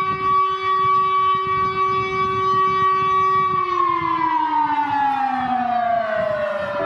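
Civil defense siren sounding its test signal: a steady tone for about three and a half seconds, then the pitch slides gradually down as the siren winds down.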